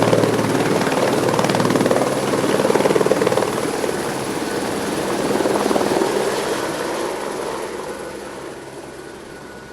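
Helicopter running with a rapid, rhythmic rotor beat, loud at first and fading steadily over the last few seconds.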